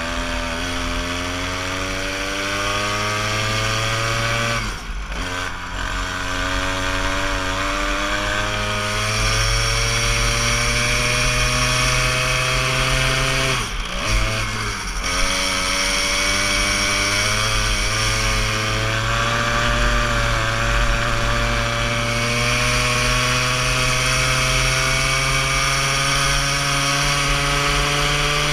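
Small go-kart engine heard onboard, its buzz climbing in pitch as the kart accelerates. The revs drop sharply about five seconds in and again around the middle as the kart slows for corners, then rise in one long climb down the straight near the end.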